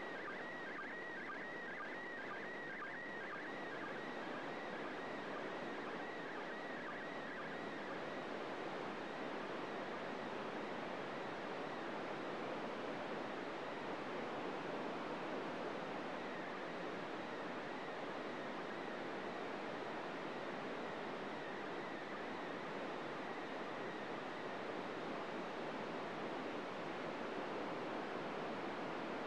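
FM radio receiver on 145.800 MHz giving a steady hiss of static, with the International Space Station's PD120 slow-scan television signal heard as a faint warbling tone for the first several seconds. The tone then sinks into the noise: the signal is weak and noisy.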